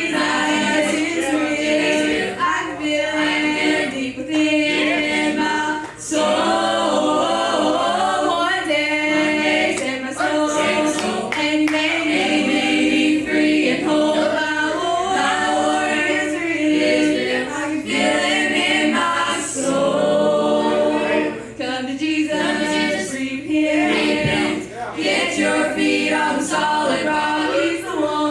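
A group of young singers singing a gospel song together.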